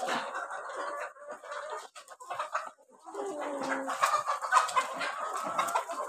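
A flock of Kadaknath chickens clucking, with many calls overlapping and a few longer drawn-out calls in the second half.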